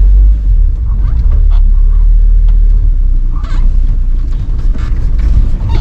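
UAZ Buchanka (UAZ-452) van driving over rough off-road ground: a loud, steady engine and drivetrain rumble, with scattered knocks, rattles and creaks from the body and loose gear in the back being thrown about.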